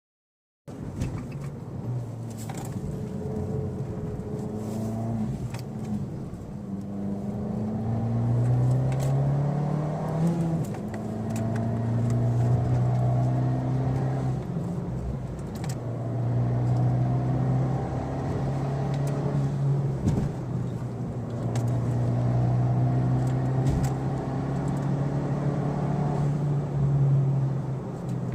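Abarth 595 Pista's stock turbocharged 1.4-litre four-cylinder engine and exhaust pulling under acceleration. The engine note climbs between about eight and ten seconds in, dips briefly, then holds fairly steady with small rises and falls.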